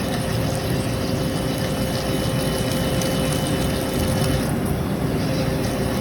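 Drill running steadily while boring a hole in mild steel, a constant motor sound with a thin steady whine.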